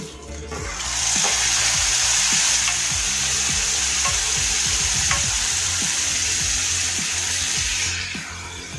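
Hot oil in a kadhai sizzling hard as a watery green masala paste is poured over frying stuffed brinjals, with a few clinks of a metal spoon against the bowl and pan. The sizzle rises about a second in and dies down near the end.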